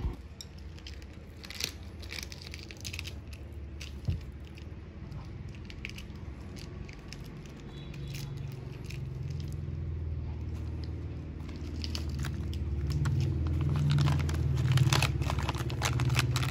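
Rice paper, lettuce and herbs being handled and rolled up by hand, with many small crinkling, crackling clicks. A low rumble grows louder in the second half.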